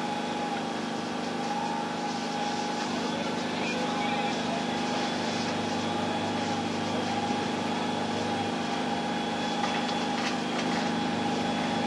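A small engine running steadily at a constant speed, with a steady high tone over its drone.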